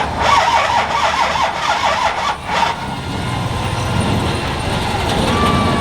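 Diesel pulling truck running at full load down the track, its turbo whine wavering up and down for the first couple of seconds before the engine settles into a lower, steadier note.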